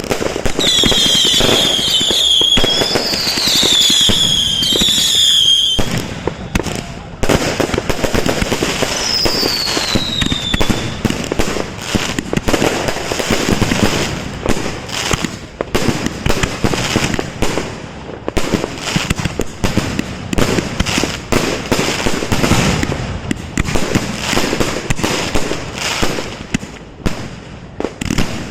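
Fireworks going off in rapid succession: dense bangs and crackling throughout. Several high whistles glide down in pitch during the first six seconds, and one more comes about ten seconds in.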